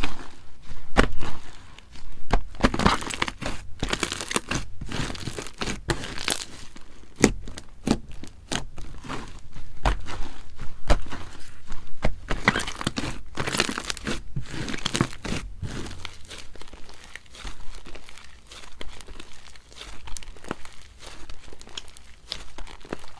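Slime being squeezed, stretched and poked by hand, giving a dense run of sticky crackles and small pops. The crackling thins out and gets softer about two-thirds of the way through.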